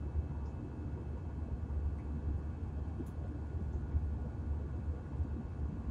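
Jet airliner's cabin noise in flight: a steady low rumble of the engines and rushing air, heard from inside the passenger cabin.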